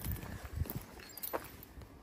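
Footsteps on a gravel path, a few steps in the first second, then quieter.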